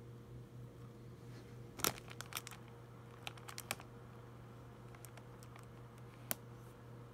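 Scattered small clicks and crinkles from hands handling close to the microphone, the loudest about two seconds in, over a steady low hum.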